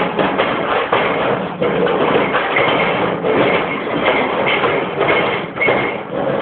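Noise-music performance: a loud, continuous wall of harsh, distorted noise, with short high whines cutting through now and then.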